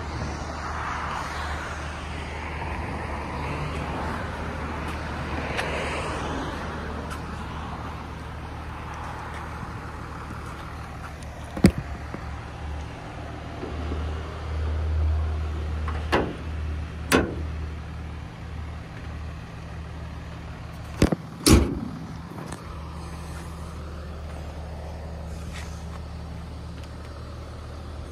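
Toyota Yaris Cross's 1.5-litre three-cylinder engine idling with a steady low hum, its bonnet open. In the middle come several sharp knocks, then a pair of loud bangs about 21 seconds in as the bonnet is shut.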